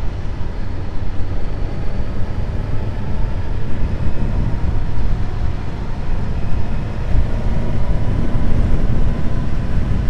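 Suzuki GSX-S 1000GT's inline-four engine running at a steady cruise on the move, heard as a continuous drone under a heavy low rush of wind.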